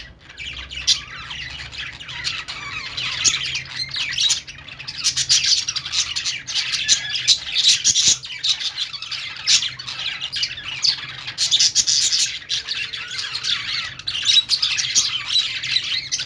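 A flock of budgerigars chattering together, many birds chirping and squawking at once in a dense, continuous twitter.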